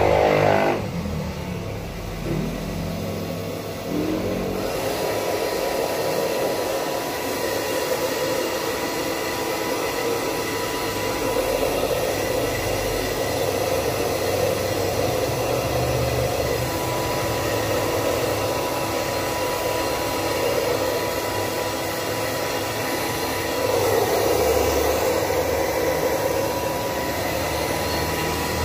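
Handheld electric hair dryer running as it dries a puppy's wet coat: a steady whir with a faint thin whine in it. It is somewhat quieter for the first few seconds, then holds steady.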